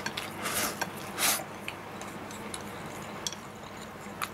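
Eating from a bowl with chopsticks: a few sharp light clicks of the chopsticks against the bowl and several short, noisy eating sounds as food is scooped into the mouth.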